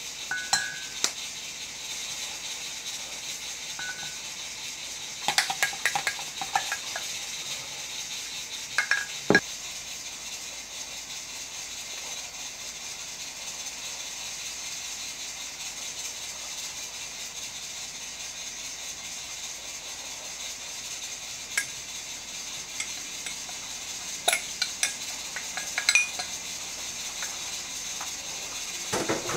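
Dishes and kitchen utensils clinking and knocking now and then, over a steady hiss. There are a few clusters of taps, with the loudest knock about nine seconds in.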